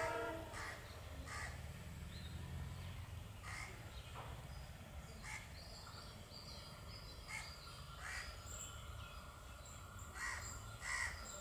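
Crows cawing repeatedly over the faint, steady low rumble of twin WDG3A diesel locomotives approaching slowly. The last of a locomotive horn note cuts off right at the start.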